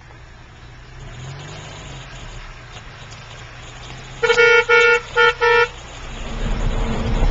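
Car horn honking four times in quick succession, one longer honk then three short ones. After that a small 4x4's engine grows louder as it drives up close.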